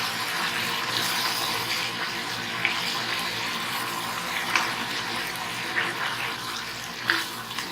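Cooked beef and its broth in a hot iron pan of coconut oil: a steady watery sizzle and bubbling as the liquid hits the hot oil and starts to reduce, with a few light clicks.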